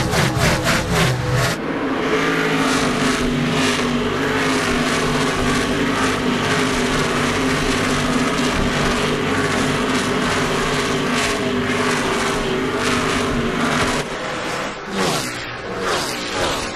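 NASCAR stock car V8 engines running at racing speed: a steady, dense drone of several cars together. About fourteen seconds in it cuts to cars sweeping past, their pitch falling as they go by.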